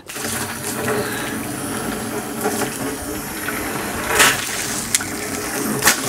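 Water from a garden hose spray nozzle pouring steadily into a plastic water butt as it fills. A couple of brief knocks come about four seconds in and near the end.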